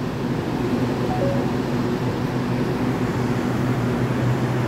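Steady hum of a stainless EMU800-series commuter train standing at an underground platform. The hum gets a little louder near the end.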